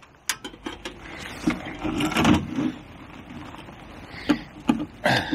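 Small clicks, knocks and rustling from hands handling gear close to the microphone: a few sharp clicks at the start, a busier clattering stretch around two seconds in, and more clicks near the end.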